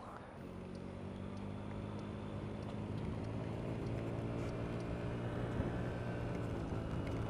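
Honda CHF50 scooter's 49 cc four-stroke single engine running under way with wind and road noise, growing louder over the first few seconds as the scooter picks up speed, then holding steady.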